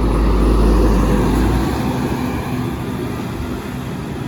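Volvo bus passing close by with a deep diesel rumble, loudest in the first second and a half, then fading as it moves away.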